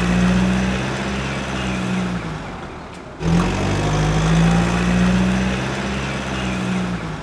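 Truck engine sound effect running and fading, played twice back to back, each time for about four seconds with a break just after three seconds.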